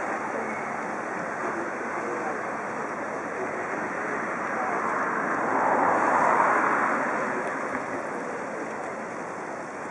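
Steady murmur of a large crowd talking, swelling for a second or two about six seconds in.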